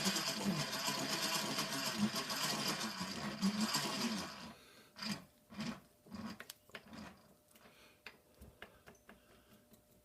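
Milling machine feed gearing whirring steadily as the table is moved into position. It stops suddenly about four and a half seconds in, and a scatter of light clicks and knocks follows.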